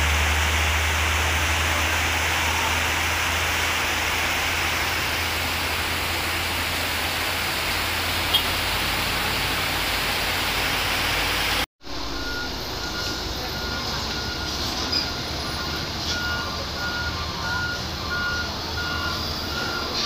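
Heavy diesel trucks running on a steep hairpin climb: first a steady low engine hum under the hiss of rain, then after a sudden cut, truck engines with a steady run of short, evenly spaced high electronic beeps from a truck's warning alarm.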